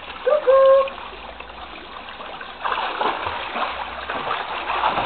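Water splashing and sloshing in a backyard above-ground pool as people wade and swim through it, louder from about two and a half seconds in.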